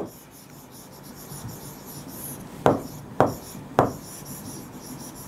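A pen writing by hand on a board, with a faint steady scratching and sharp taps of the pen tip. There is one tap at the start and three louder ones about half a second apart a little past halfway.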